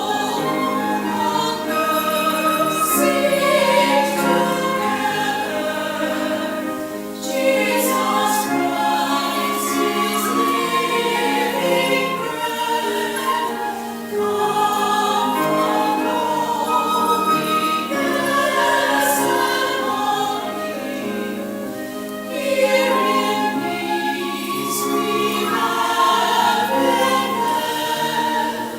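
Choir singing a hymn in phrases several seconds long, with brief breaks between phrases.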